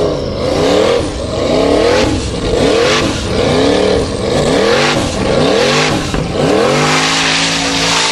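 Offroad racing buggy's engine revving hard and dropping back about once a second as it climbs a steep gravel wall. Near the end it holds high revs steadily for a second or so on the steepest part of the climb.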